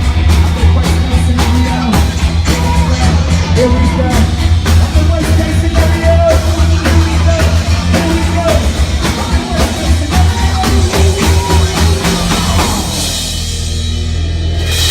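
A live band playing loud rock with drum kit, heavy bass and a sung melody through a PA during a sound check. About 13 seconds in the playing stops and the instruments are left ringing over a sustained bass tone.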